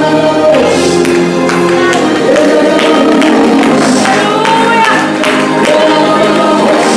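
Worship music with singing over sustained held chords.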